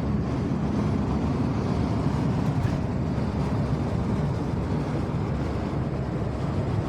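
Steady low engine and road noise inside the cabin of a van driving at speed.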